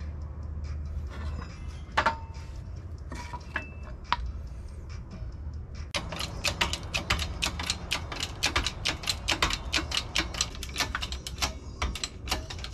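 Bottle-jack hydraulic shop press being pumped by its handle while pressing a bushing into a trailing arm: a fast run of sharp metallic clicks, about five a second, from about six seconds in. Before that come a single knock and a few scattered clicks.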